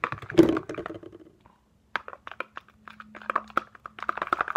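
A short murmur of voice at the start, then a utensil clicking and scraping against the sides of a plastic food container while stirring an egg mixture, the taps quickening toward the end.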